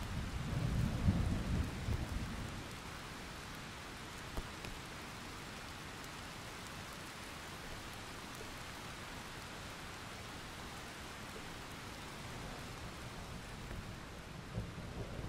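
Steady rain with low rumbles of thunder, strongest in the first couple of seconds and again near the end.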